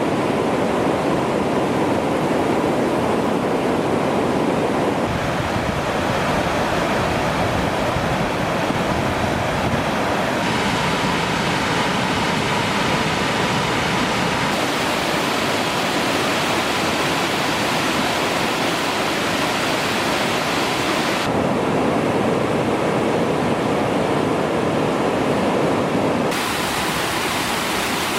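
Waterfall rushing: a steady noise of falling water, its tone changing abruptly several times.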